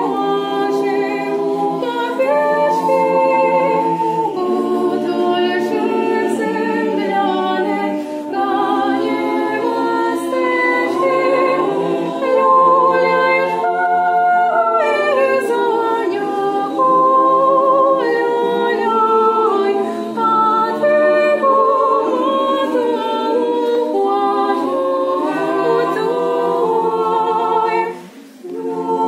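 Parish choir singing a Ukrainian Christmas carol (koliadka) a cappella, several voices in parts holding long notes, with a short break between phrases near the end.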